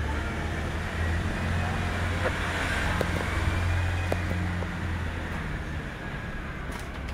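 A motor vehicle passing by, its engine and tyre noise swelling to a peak around the middle and then fading away.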